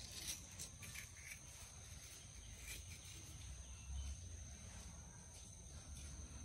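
Quiet outdoor ambience: a steady high-pitched insect drone over a low rumble, with a few faint clicks and scrapes of a metal spoon scooping aloe vera gel against a small glass.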